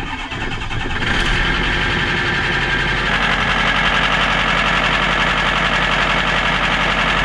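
Flood-damaged 2014 Ford F-250 Super Duty engine starting and, within about a second, settling into a steady run with a noise that is not supposed to sound like that; the owner puts it down to flood damage.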